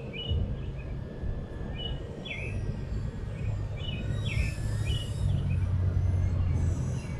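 Birds chirping in short, repeated hooked notes, over a steady low rumble that grows louder in the second half.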